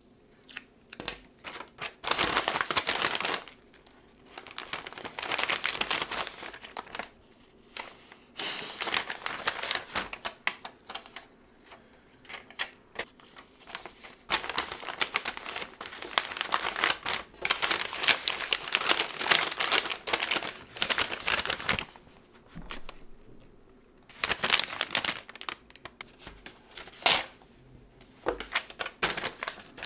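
Brown kraft paper bags rustling and crinkling as they are handled and packed, in irregular bursts with short pauses between them.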